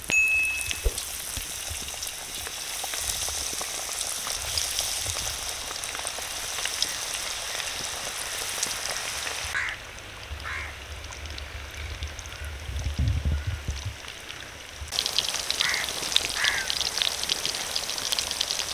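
Crumb-coated fish fingers sizzling and crackling in hot oil in a steel karahi as they go in to deep-fry. The crackle thins for a few seconds midway, with a low rumble, then comes back strongly; a brief high tone sounds at the very start.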